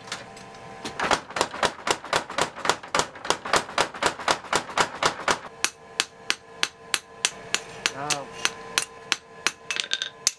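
Hammer blows on a hot kanna blade blank of steel forge-welded to iron at the anvil, forging to refine the steel's grain. The blows ring sharply: a fast run of about five a second, then slower, spaced blows, with a steady hum underneath.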